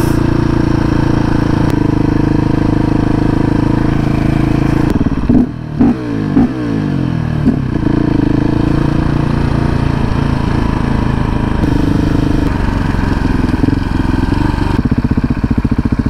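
KTM 690 SMC R's single-cylinder four-stroke engine idling, with a few quick throttle blips about five to seven seconds in.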